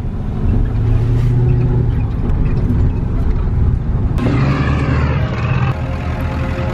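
Pickup truck's engine running steadily inside the cab while driving with a loaded trailer in tow, a low steady drone. About four seconds in, the sound cuts abruptly to something different with sliding pitches.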